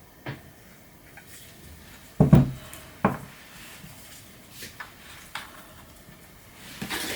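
A few clunks and knocks of objects being handled and set down on a hard surface, the loudest a heavy double knock about two seconds in, with lighter taps later and a brief scrape near the end.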